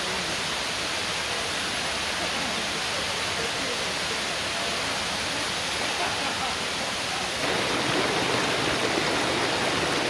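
Waterfall and its stream rushing: a steady wash of falling water. About seven seconds in it jumps abruptly louder and closer.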